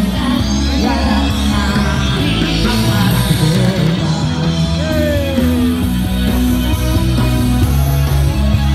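Live rock band playing loud amplified music through a PA, with a singer's voice over the band.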